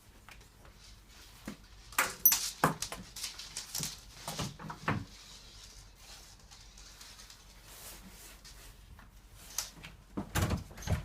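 Clicks, knocks and scrapes of a letterbox tool with a rubber gripper attachment being worked through a door's letterbox onto the inside handle, in a cluster about two seconds in and again near the end.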